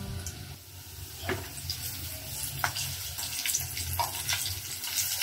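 Breaded pieces frying in shallow oil in a nonstick pan: a steady sizzle that grows brighter partway through, with scattered pops and crackles over a low hum.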